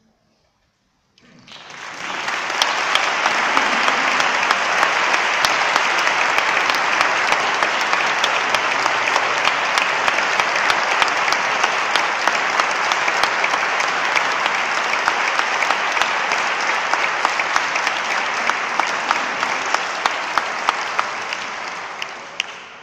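Audience applauding: the clapping starts about a second in, after a brief silence, holds steady and dies away near the end.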